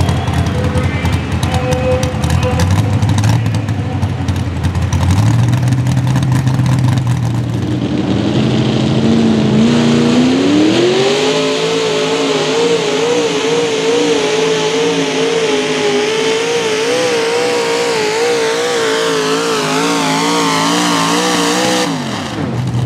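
Mini rod pulling tractor engines running hard under load during pulls. About ten seconds in, one engine revs up steeply and holds at high revs with its pitch wobbling rapidly, then cuts off suddenly near the end. A lower, steady engine note follows.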